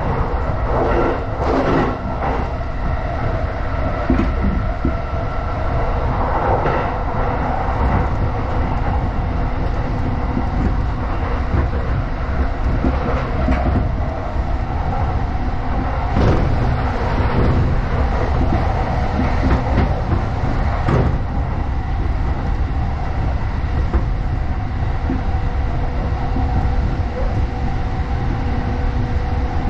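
Interior running noise of a JR Chuo Line E233-series electric commuter train at speed: a steady rumble of wheels on rail under a steady hum, with occasional clacks over rail joints.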